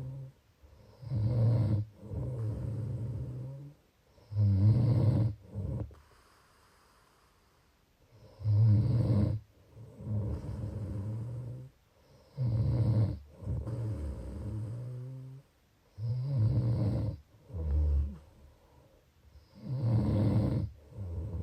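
A sleeper snoring in a slow, regular rhythm: a loud, low rasping snore about every four seconds, each followed by a quieter, longer breath, six times over.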